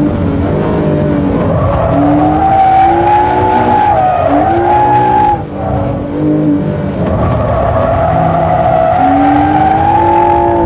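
Porsche 997 GT3's flat-six engine running hard under throttle, heard from inside the cabin, its pitch climbing and wavering as the car is held in a drift, with a short lift about five and a half seconds in before it climbs again. Tyres squeal through the slide.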